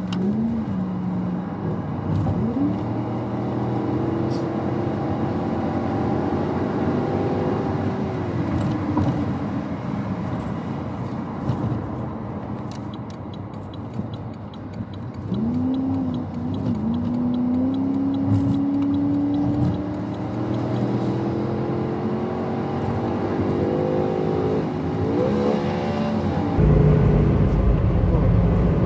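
Ford F-350's V8 engine heard from inside the cab on a test drive, with road noise: its pitch climbs as it accelerates and drops back at the gear changes, easing off about halfway through and then pulling up again twice. The engine is answering the throttle normally again after a shorted wire between the accelerator pedal sensor and the throttle body was repaired.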